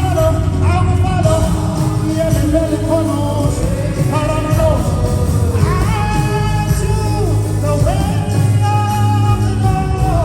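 Live gospel worship music: a singer holding long, gliding notes without clear words over a band with a steady, heavy bass.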